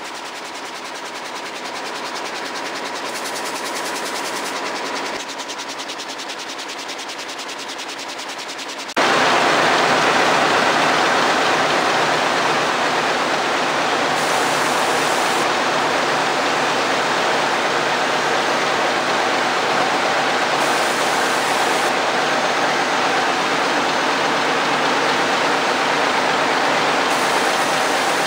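Air jet looms weaving denim: for about nine seconds the fast, even clatter of a loom running close by, then a sudden change to a louder, steady noise of running looms.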